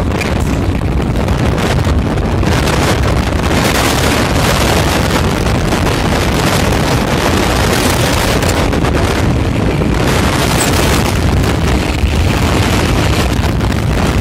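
Loud, steady wind rush on the microphone of a motorcycle riding at speed.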